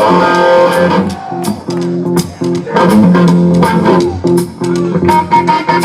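Live blues-rock band playing an instrumental passage: electric guitar over a repeating bass riff and drum-kit beat.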